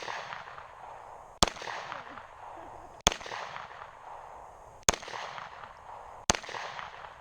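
Four 9mm pistol shots fired at a steady pace, about one every one and a half to two seconds, each sharp crack trailing off in an echo.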